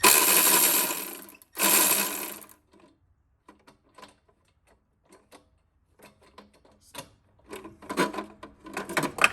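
Ratchet and socket working the downpipe's V-band clamp loose: two bursts of rapid clicking, then scattered single clicks and a quicker run of clicks near the end.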